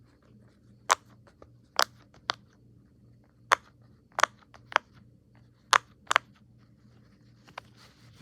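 Bubbles of a silicone pop-it fidget toy being pressed through one at a time: about eight sharp pops at uneven intervals.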